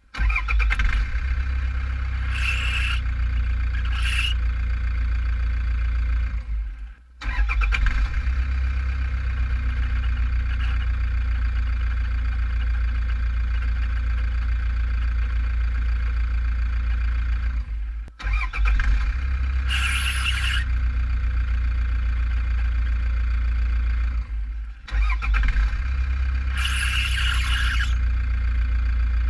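Toyota Prado's 1KD four-cylinder turbo-diesel running, with the accessory drive belt squealing in short bursts that come and go, four times, each a second or so long. The belt and three pulleys are new and the harmonic balancer is not slipping; the owner suspects a weak drive-belt tensioner spring letting the belt slip.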